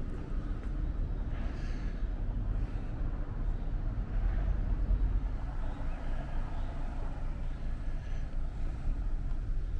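Steady low outdoor rumble of street ambience, heaviest in the bass and wavering throughout.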